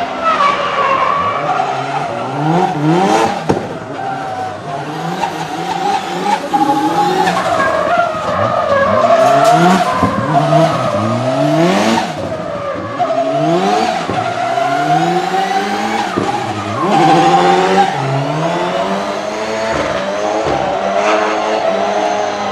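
Nissan 200SX S13 drift car's engine revving hard and dropping back again and again, over continuous tyre squeal from sliding tyres.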